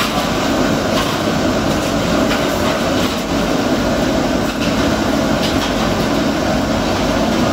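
E-waste PCB dismantling machine running: its drum tumbling circuit boards, giving a steady mechanical rumble with a faint hum and a constant irregular clatter of small knocks as components are shaken loose.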